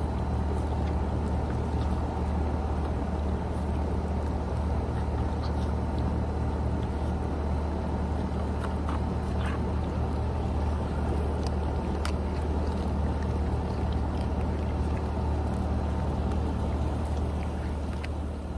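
A steady low machine drone that holds the same pitch throughout, with a few faint clicks over it.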